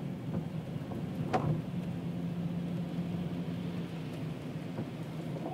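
Steady engine hum and road rumble inside a moving car, with one short knock about a second and a half in.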